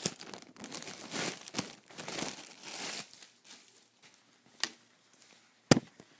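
A clear plastic shipping bag crinkling and rustling as a pair of nylon pants is pulled out of it, busiest over the first three seconds and then quieter. A small click and then a single sharp tap near the end, the tap the loudest sound.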